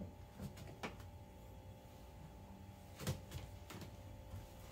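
Faint, scattered knocks and clicks of things being handled in a small kitchen: a handful of light taps, the loudest about three seconds in, over a faint steady hum.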